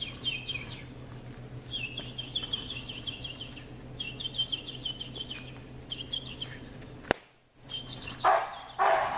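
American Bulldog puppies yapping in quick runs of high-pitched yips while they tug at a rag. Near the end there is a sharp click, a brief moment of quiet, and then a louder, lower burst.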